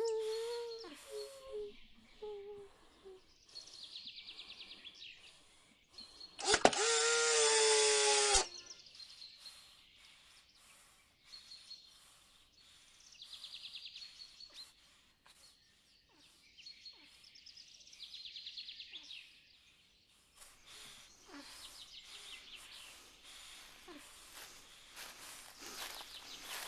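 Forest ambience of birds chirping and calling, with short repeated trills. About seven seconds in, a much louder sound with a wavering pitch lasts about two seconds, then stops suddenly.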